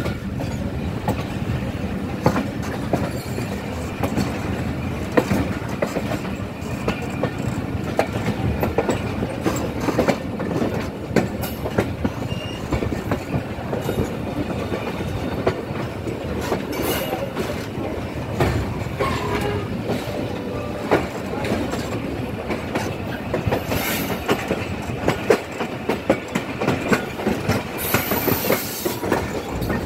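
Pakistan Railways passenger train running, heard from an open coach doorway: a steady rumble with wheels clattering over rail joints and points in a dense run of sharp clicks.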